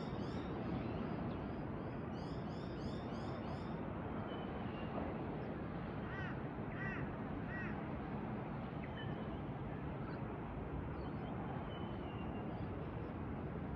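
Several birds calling at dawn: a rapid run of high, repeated chirps in the first few seconds, then three arched calls about six to eight seconds in, with scattered faint whistles after, over a steady rushing background noise.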